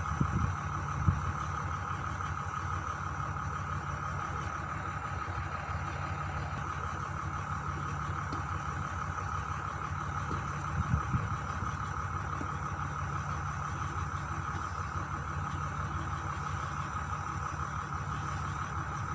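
Heavy diesel engine idling steadily: a constant low hum with a higher steady whine above it. There is one brief louder sound partway through.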